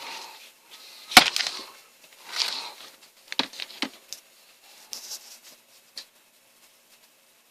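A few sharp clicks and knocks with short rustles, like hard plastic parts being handled and set down, loudest about a second in.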